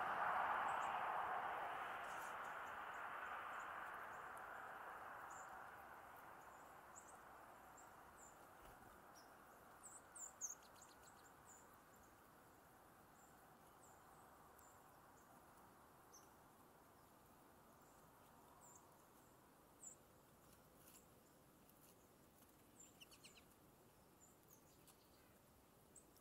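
Faint, high, short chirps of small songbirds, scattered, with a brief cluster of louder chirps about ten seconds in. A broad rushing noise fades away over the first several seconds.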